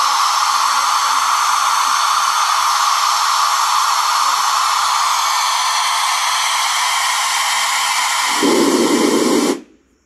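Steady hiss of test noise played through a car audio system during tuning, strongest in the midrange. A deeper band of noise joins near the end, then the noise cuts off suddenly.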